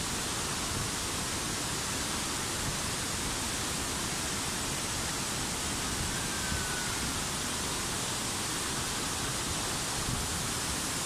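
Tinuy-an Falls, a wide curtain waterfall, pouring into its pool: a steady rushing noise with no change in level.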